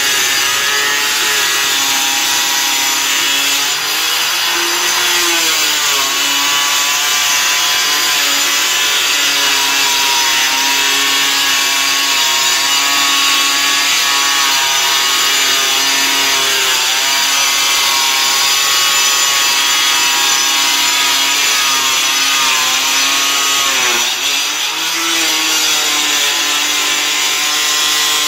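Handheld angle grinder with a cutting disc running steadily as it cuts a long straight line through a 4 mm GRC fibre cement board. Its whine dips briefly in pitch and recovers about 4 seconds in and again near 24 seconds.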